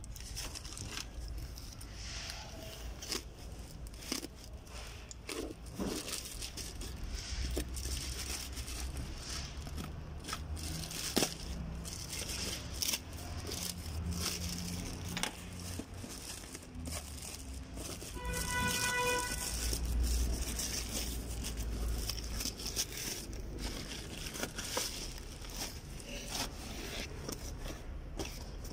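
Plastic courier mailer bag crinkling and tearing as it is opened by hand, with scattered rustles and small clicks, then the cardboard box inside being handled. About two-thirds of the way through, a short electronic tone sounds for a second or so.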